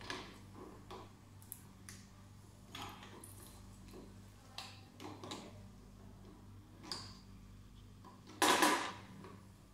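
Light clicks and taps of a hand tool and plastic fittings at the water filter housing of a Soprano laser machine, over a low steady hum, with one louder half-second noisy sound about eight and a half seconds in.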